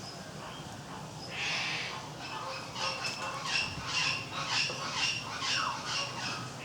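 Caique parrot squawking: a harsh rasp about a second and a half in, then a run of short, repeated calls, about three a second.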